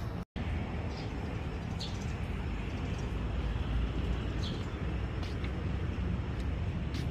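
Outdoor ambience: a steady low rumble with short, high bird chirps now and then. The sound cuts out for a moment just after the start.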